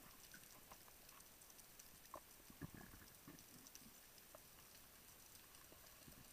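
Near silence underwater: faint scattered clicks and crackles, with a few short low thuds around two to three seconds in.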